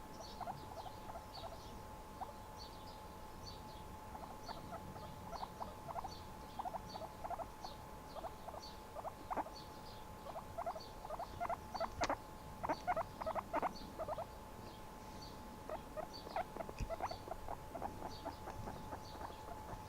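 Guinea pig making many short, irregular squeaks, thicker in the middle of the stretch.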